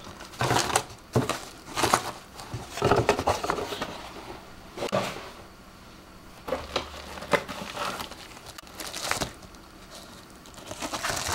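Hands handling packaging: irregular taps, scrapes and rustles of a cardboard box and foam, then crinkling of a plastic anti-static bubble-wrap bag near the end.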